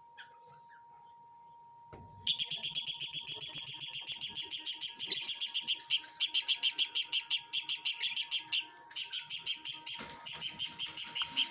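A parrot calling in a rapid, evenly spaced string of high chirps, about nine a second, starting about two seconds in and running in long bursts broken by brief pauses.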